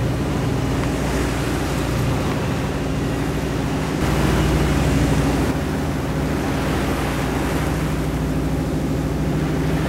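Fishing boat's engine running steadily under way, with wind and water noise rushing past. The noise swells for a second or so about four seconds in.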